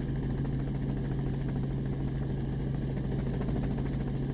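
Steady helicopter engine and rotor drone with a constant low hum, unchanging throughout.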